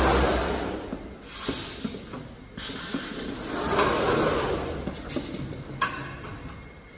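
Jug palletizer machinery running as its gripper head moves: a noisy whoosh that swells and fades twice, with a few sharp mechanical clicks, the clearest near the end.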